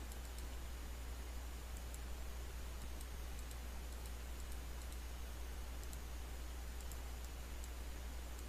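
About a dozen faint, irregular clicks from a computer mouse and keyboard, over a steady low electrical hum and hiss from the recording microphone.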